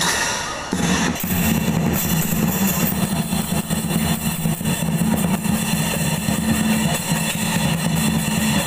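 Lion dance percussion: a large barrel drum beaten rapidly with clashing cymbals, loud and continuous, with a brief dip near the start.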